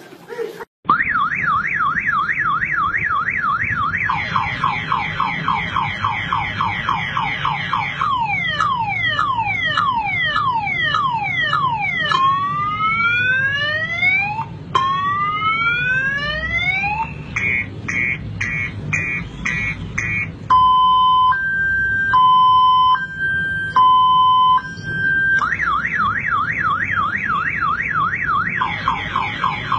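A man imitating a car alarm with his voice, working through the alarm's full cycle. It runs from fast warbles into a string of falling chirps, then long rising whoops, rapid even beeps, and a slow two-tone alternation, and ends back on the fast warble.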